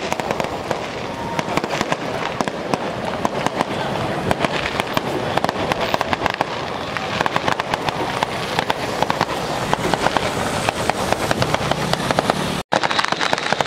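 Strings of firecrackers going off in a dense, continuous crackle of rapid sharp bangs, with a brief break near the end.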